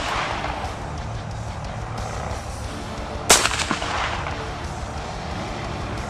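A single AR-style rifle shot about three seconds in: a sharp crack with a short echo trailing off, part of slow aimed fire at paper targets. The echo of the previous shot is dying away at the start.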